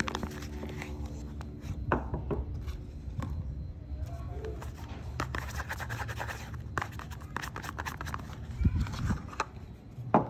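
Bars of soap being unpacked and handled: scattered taps and clicks with stretches of scratchy rustling, over a low steady hum.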